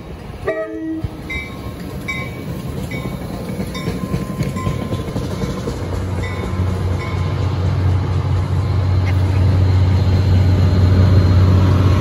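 Push-pull commuter train pulling out, its passenger cars rolling past with wheel and rail noise that grows steadily louder, while a bell strikes about once a second through the first half. From about six seconds in, the steady low drone of the Metro-North F40PH-3C diesel-electric locomotive at the rear builds as it draws near.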